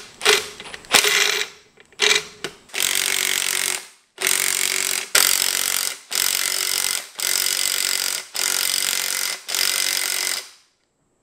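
Cordless impact wrench hammering as it runs down the threaded rods of a clamp-type coil spring compressor on a strut, compressing the spring to take the load off so the strut can be taken apart. A few short blips, then a string of bursts about a second long with brief pauses, stopping shortly before the end.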